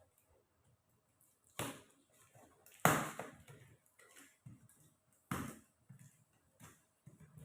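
A few sharp knocks and taps of parts and packaging being handled while a metal rack kit is unboxed. The loudest knock comes about three seconds in, with lighter taps between.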